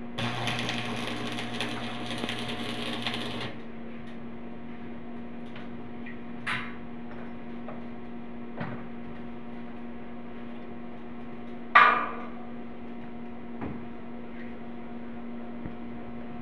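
Arc welding on a steel roof frame: the arc crackles and sputters for about three and a half seconds at the start, then stops. Later come a few light knocks and, about twelve seconds in, one loud sharp knock with a brief ring, all over a steady low hum.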